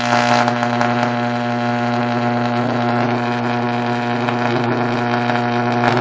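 High-current electric arc drawn from two microwave oven transformers wired in series at about 4200 volts: a loud, steady electrical buzz with crackling.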